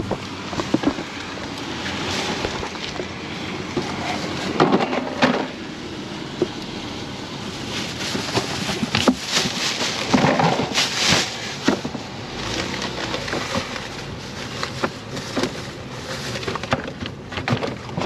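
Paper grocery bags rustling and packages knocking as groceries are handled and loaded into a portable fridge, with irregular clatter and louder bursts of rustling about five and ten seconds in.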